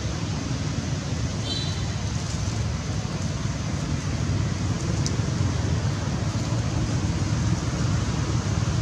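Steady low rumbling background noise, with a brief high chirp about a second and a half in.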